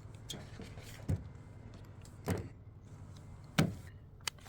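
Items from a body repair kit being handled and set down: four short knocks about a second apart, the third the loudest, over a steady low hum.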